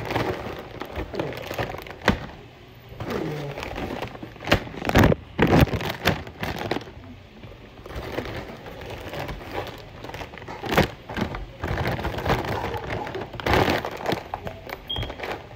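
Thin plastic shopping bag rustling and crinkling as plastic candy bags are pulled out of it and handled, with irregular crackles and a few sharper snaps.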